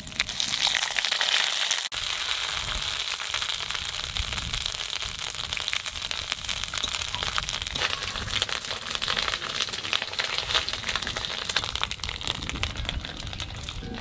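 Ginger paste with dried red chillies, bay leaves and panch phoron sizzling and spitting in hot oil in a kadai: a dense, steady crackling hiss, the tempering stage of cooking khichuri.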